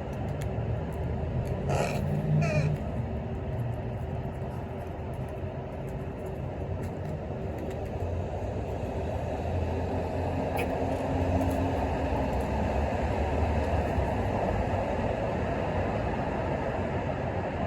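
Steady rumble of passing road traffic, growing a little louder in the second half, with two short sharp sounds about two seconds in.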